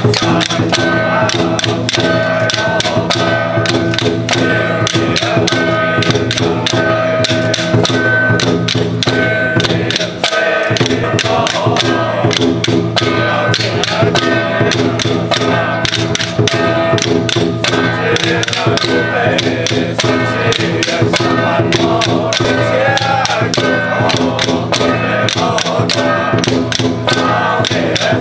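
Traditional Taiwanese temple ritual music: held tones over quick, even percussion strikes, several a second, continuing throughout, with a brief drop about ten seconds in.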